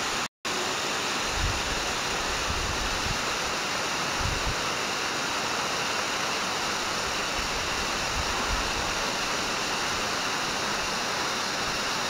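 Waterfall cascading in thin streams down a tall rock face: a steady rush of falling and splashing water. There is a brief gap in the sound just after the start, and a few short low rumbles.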